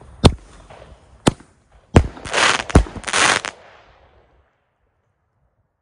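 Helios Double Strike firework shell tube firing: four sharp bangs over about two and a half seconds as the shells launch and burst, with bursts of crackling after the last two, dying away about four seconds in.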